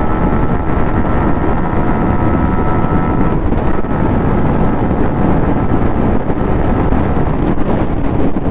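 Heavy wind rush on the microphone over a Yamaha MT-15 V2's 155 cc single-cylinder engine held at high revs in fifth gear, accelerating near the bike's top speed. The engine note is steady.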